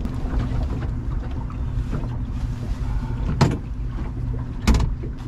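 A fishing boat's motor runs steadily under wind and water noise. Two sharp clicks or knocks come about three and a half seconds in and again near the end.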